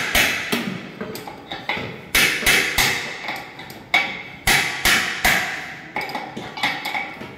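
Sharp metal-on-metal knocks in quick groups of two to four: a spanner on the centre bolt of an LG direct-drive washing machine's motor rotor is being struck to break the tight bolt loose.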